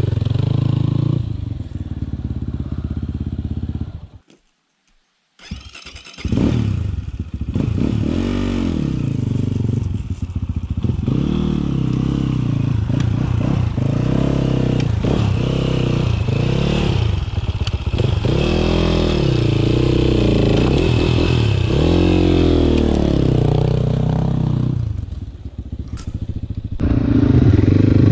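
Dirt bike engines running on a rough trail, with many short throttle blips rising and falling in pitch as the bikes are worked along at low speed. The sound cuts out about four seconds in for a little over a second.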